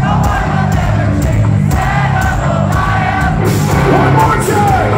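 Rock band playing live, with drums keeping a steady beat under electric guitars and bass, while the audience sings along with the vocal line.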